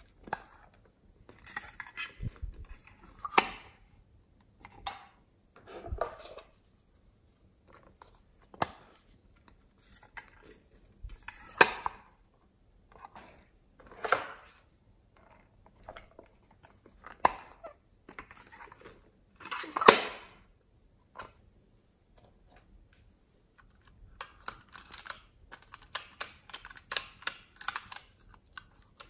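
Plastic containers and small toppings being handled over a tray of slime: irregular clicks, taps and short rattles as foam cubes are tipped out of a plastic case and jars are picked up, with a few louder knocks and a run of quick clicks near the end.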